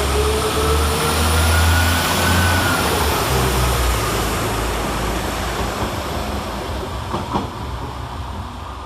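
Northern Class 195 diesel multiple unit pulling away, its engines running under power with a rising whine as it accelerates over the first few seconds. The sound then fades as the train moves off, with a brief high squeak about seven seconds in.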